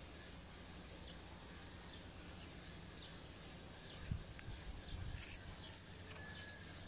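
Faint outdoor ambience with small birds chirping in the background, short high chirps about once a second. There is a low thump about four seconds in and two brief rustles later on.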